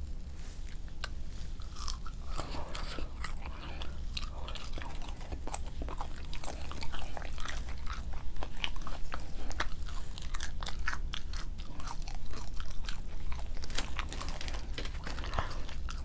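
Close-miked chewing and crunching of McDonald's food, many short crisp bite and mouth sounds one after another, over a steady low hum.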